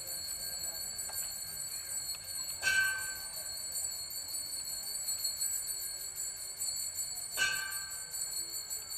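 Altar bells rung twice at the elevation of the consecrated host, a bright jingling ring about three seconds in and again about seven seconds in, each dying away; the ring marks the moment the host is raised.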